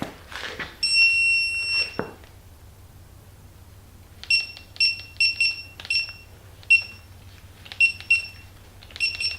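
Electronic beeps from a Snap-on 3/8 in digital torque wrench as its target torque is set: one long beep lasting about a second, then a string of short, unevenly spaced beeps of the same pitch as the buttons are pressed.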